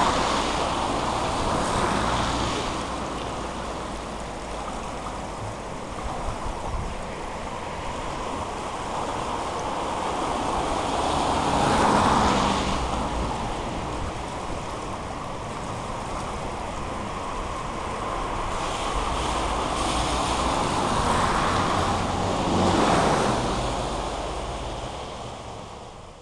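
River water rushing and churning over a choppy surface, swelling louder for a moment every few seconds, with a low rumble of wind on the microphone. It fades out near the end.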